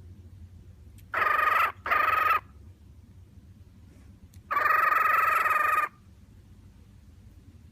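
Grey cockatiel calling: two short, even-pitched calls in quick succession, then one longer call about four and a half seconds in. These are what the owner calls its happy sounds.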